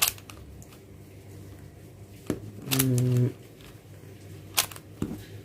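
A few sharp plastic clicks of a 4x4 Rubik's cube being turned and handled, four in all, with a short hummed 'mm' from the solver about halfway through.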